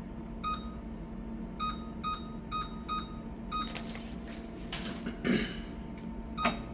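Control keypad of an Olympus disinfection machine beeping as the filter lot number is keyed in: six short, same-pitched beeps over the first four seconds, against a steady machine hum. A couple of brief rustling knocks follow near the end.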